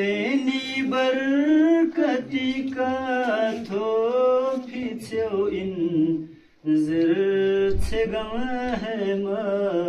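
A single voice singing an unaccompanied devotional chant in long, wavering melodic phrases, with a short break about six and a half seconds in.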